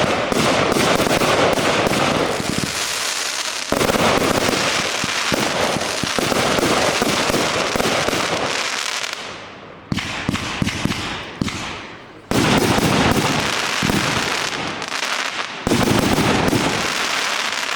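138-shot combined firework cake firing: dense volleys of shots and crackling bursts in quick succession, with brief lulls about 3, 9 and 12 seconds in.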